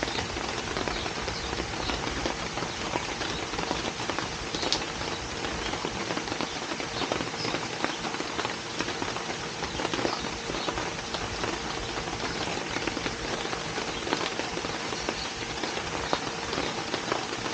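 Steady rain falling: a dense hiss dotted with many individual drops ticking on a surface.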